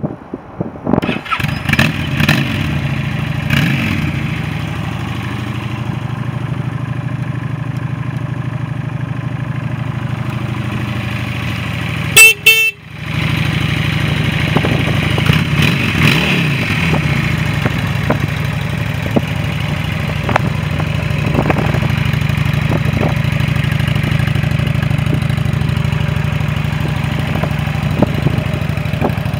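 A 2016 Honda Shadow Phantom's 745 cc V-twin starting up and being blipped a few times, then idling steadily. About twelve seconds in, the bike's horn sounds briefly, the loudest sound.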